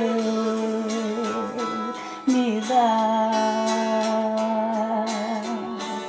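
Sung vocal melody holding long notes over strummed acoustic guitar. A new held note starts a little after two seconds in and wavers with vibrato.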